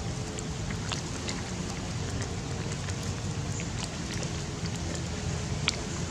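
Steady outdoor background noise, a low rumble with an even hiss, broken by a few faint clicks; no animal calls stand out.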